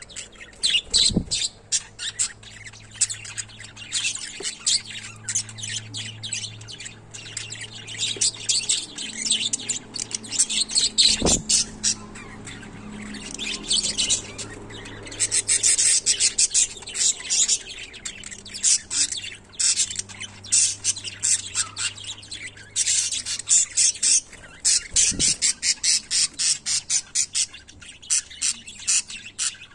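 Small pet parrots, a caged pair, chattering continuously in rapid high chirps and squawks. There are three brief low thumps, near the start, midway and toward the end.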